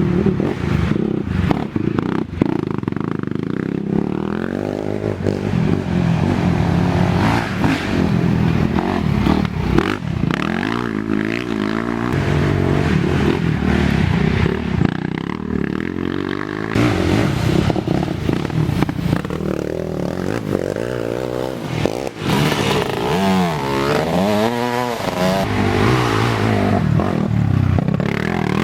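Racing ATV engines revving and easing off over and over, with quick rises and falls in pitch about three-quarters of the way through.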